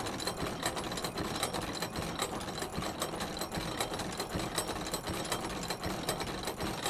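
Mechanical sound effect of turning gears: a dense, uneven clatter of many clicks a second.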